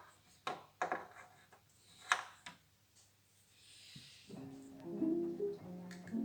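Several sharp clicks and taps from handling the plastic licence plate light assembly, spread over the first half. Gentle background music with plucked, mallet-like notes comes in about four seconds in.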